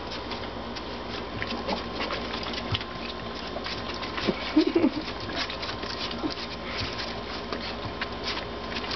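Weimaraner puppies lapping milk from a shallow dish: a busy run of quick, wet clicks from several tongues at once. About halfway through there is a brief, louder squeaky sound.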